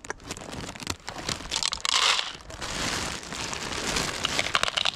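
Footsteps crunching on packed snow, with rustling close to the microphone. There is a louder burst of crunching about two seconds in.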